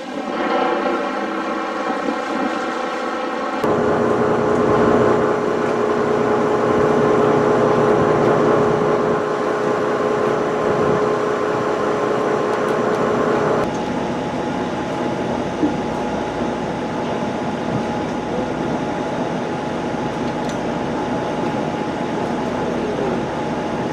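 Twin 1,200-horsepower Detroit Diesel engines of a catamaran tour boat running at a steady drone with a held hum, heard from the deck. The tone and level shift abruptly twice.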